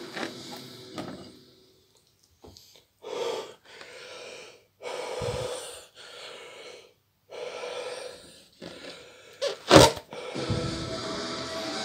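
A man breathing deeply in and out of a balloon filled with nitrous oxide from a cream whipper, about half a dozen breaths in a row with short pauses between them. A short, loud burst of breath near the end is the loudest sound.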